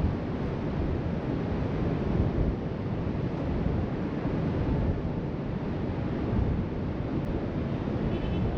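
Steady wind buffeting a GoPro's microphone, over the even wash of waves breaking on the beach below. A brief faint high tone sounds near the end.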